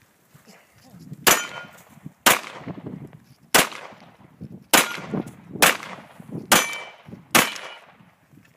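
Handgun fired seven times at a steady pace, about one shot a second, each shot followed by a short echo.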